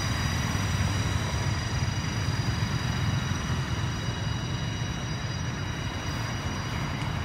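Steady outdoor background: a continuous low rumble with a constant thin high-pitched whine over it, and no distinct events.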